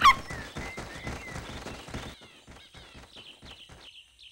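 Quick footsteps of cartoon characters walking along a forest path, fading away after about two seconds. Small birds chirp high in the jungle background, with short falling calls.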